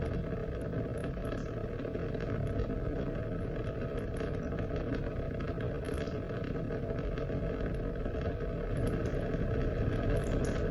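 Steady rain: a continuous rushing wash, heaviest in the low range, with scattered faint ticks of individual drops.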